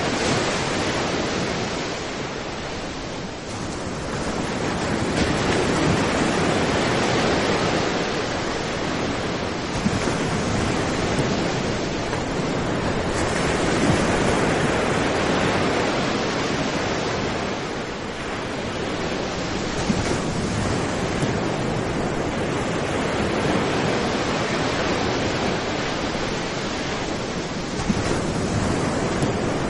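Sea surf breaking and washing up on a sand beach: a continuous rushing wash that swells and eases with each wave, dipping briefly a few seconds in and again past the middle.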